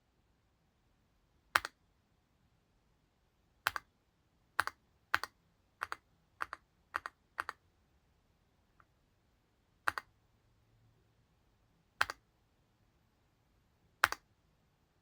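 Keys pressed one at a time on a Leobog Hi75C Pro aluminium mechanical keyboard, each press and release giving a quick double click. There are about eleven presses, spaced unevenly, with a run of six in quick succession around the middle.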